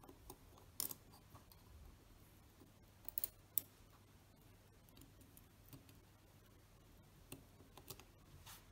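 Faint, scattered small clicks and taps of a precision screwdriver working on the screws of a Synchro-Compur leaf shutter, with the sharpest click about three and a half seconds in.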